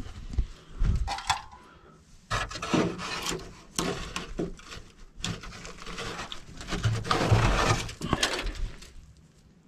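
Handling noise: irregular knocks, light clatter and rustling, heaviest in the middle of the stretch.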